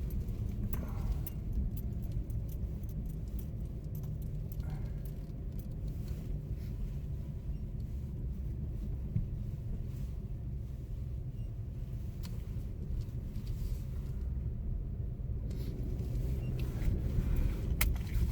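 Steady low rumble of a car driving, engine and road noise heard from inside the cabin, with a few faint clicks and rattles.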